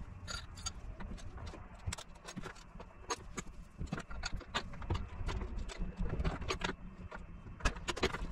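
Irregular clicks and knocks from a hand tool and handling on a couch frame as it is worked on, over a low steady hum.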